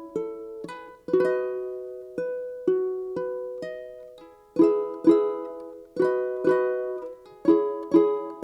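Instrumental passage on a plucked string instrument: chords struck about twice a second in an uneven rhythm, each ringing out and fading before the next, with no singing.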